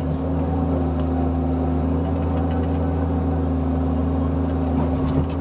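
Bobcat E45 mini excavator's diesel engine running steadily, heard from inside the cab.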